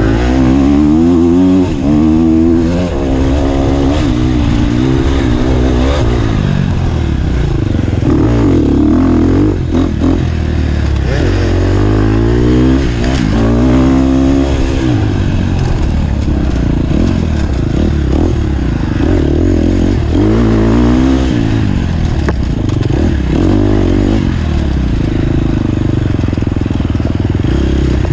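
Off-road dirt bike engine revving up and down over and over, the pitch climbing and dropping every second or two as the throttle is worked, with a few short knocks.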